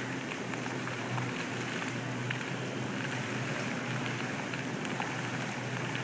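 Indoor airport fountain running: water jets splashing into the pool, a steady spattering hiss with scattered drop splashes.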